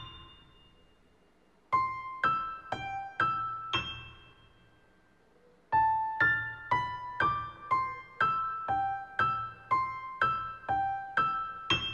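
Tinkling piano-like keyboard notes played as short melodic phrases: about five notes, a pause, then a longer run of about a dozen. Each note is struck and dies away quickly. This is the music standing in for the song of the show's pink Tittifer birds.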